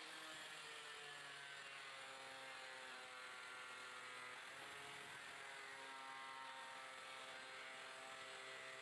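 Handheld angle grinder with an abrasive cutting disc running and cutting into an iron plate. It gives a steady motor whine over a grinding hiss, with the pitch shifting now and then as the disc loads in the cut.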